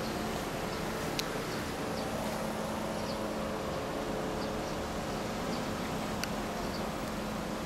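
Steady street background noise with a low traffic hum and a few faint ticks, about one second in and again near the end.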